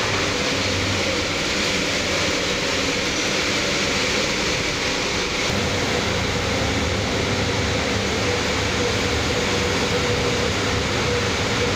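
Steady, even machine din of a commercial kitchen with Yawei G30DCA automatic stir-fry machines cooking in their rotating drums, a faint steady hum running through it.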